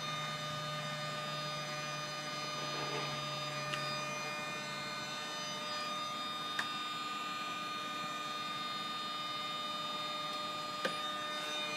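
Steady electric whine from a JetCat P80SE kerosene-start model jet turbine going through its start-up preheat, with a few faint clicks. The low part of the whine stops about five seconds in.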